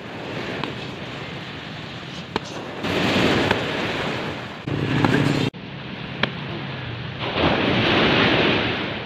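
Steady rushing noise that jumps in level several times, with a few sharp slaps of kicks landing on a hand-held kick paddle.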